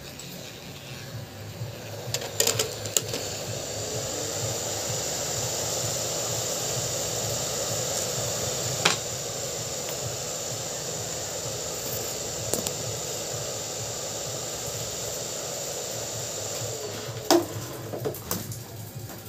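Steady rushing hiss of blown air that starts about two seconds in and cuts off near the end, with a few sharp clicks.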